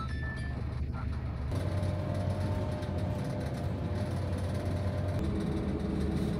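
Inside a moving city bus: a steady low rumble of the engine and road noise.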